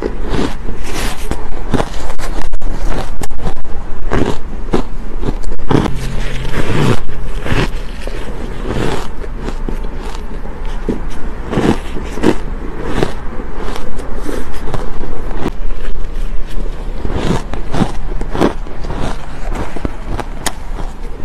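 Close-miked biting and chewing of soft, powdery ice: a dense run of crisp crunches, mixed with gloved fingers scraping and crumbling the ice in a plastic tub.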